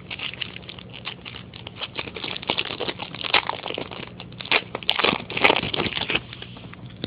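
A foil baseball card pack wrapper being torn open and crinkled in the hands: a run of irregular crackling, loudest about two-thirds of the way through.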